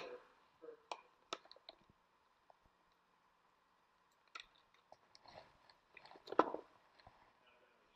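Small plastic dustpan and hand brush being handled: a scatter of light clicks and knocks, the loudest a short scrape about six seconds in.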